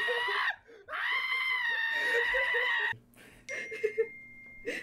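High-pitched screaming from a person: a short scream, then one held for about two seconds. Quieter short voice sounds follow near the end.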